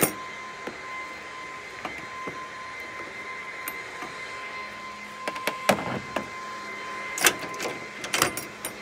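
Sharp metal clicks and clinks of screws and a socket driver being handled while the screws holding a bull ring tie-down in the truck's bed-rail pocket are taken out. There is a cluster of clicks in the middle and two louder ones near the end, over a steady high-pitched hum.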